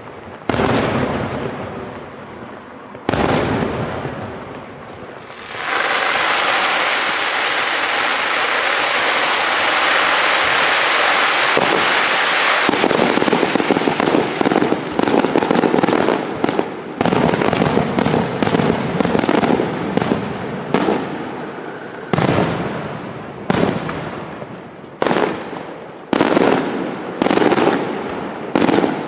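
Aerial fireworks display: a couple of sharp shell bursts, then a long dense steady hiss from about five to twelve seconds in. After that come rapid volleys of bangs, and toward the end single heavy booms about a second or a second and a half apart.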